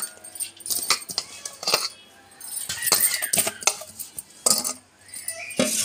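Stainless steel bowls knocking and clinking against each other as grated carrot is scraped by hand from one bowl into another, in a string of separate sharp clinks.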